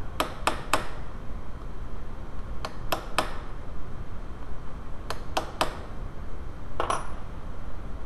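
Ball-peen hammer tapping a roll pin flush into a distributor shaft: sharp metallic taps with a short ring, in three quick sets of three with pauses between, then a single tap near the end.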